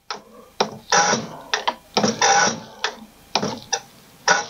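American Bosch ADE-type diesel injector nozzle on a hand-pumped pop-tester, popping open in a string of short hissing spray bursts as its opening pressure is checked. It is a freshly lapped nozzle whose opening pressure comes out a little low.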